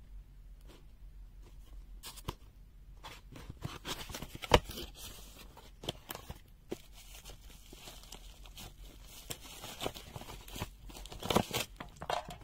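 Packaging being handled: rustling and crinkling with scattered clicks and knocks, one sharp knock about four and a half seconds in and a busier spell of handling near the end.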